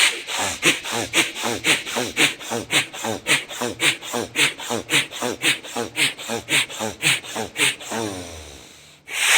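A man doing fast Bhastrika pranayama, bellows breathing: forceful, rhythmic breaths rushing in and out through the nose at about three strokes a second. The breathing stops shortly before the end.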